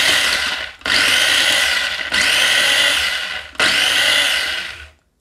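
Kenwood electric mini chopper whirring in pulses of about a second each, pressed on and off to chop garlic cloves finely; the last pulse stops about five seconds in.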